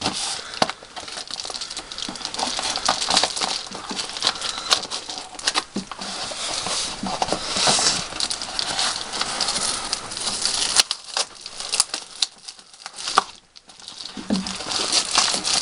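Taped shipping package being worked open by hand: continuous rustling and crinkling of the packaging, with tape tearing and scattered sharp clicks and taps. It goes quieter for a couple of seconds about eleven seconds in.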